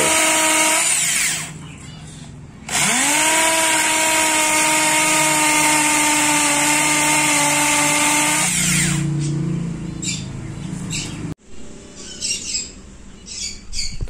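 Corded impact drill boring slowly into a hard, dry wood trunk. The motor whine stops about a second in, starts again with a rising pitch a second or so later, runs steady for about six seconds, then winds down. A few short high chirps follow near the end.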